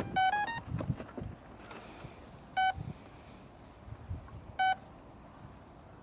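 Electronic speed controller of an electric ducted-fan model plane beeping through its motor. A quick run of short tones rising in pitch comes at the start, then single beeps about every two seconds. This is the typical pattern of an ESC powered up but not yet armed, waiting for a throttle signal.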